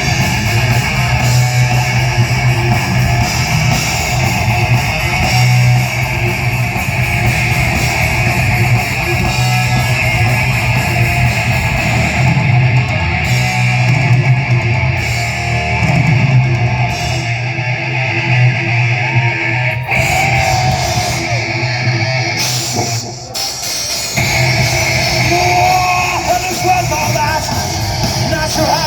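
Live heavy metal band playing loud, with electric guitars and a drum kit. The music thins out briefly about 23 seconds in, then comes back in full.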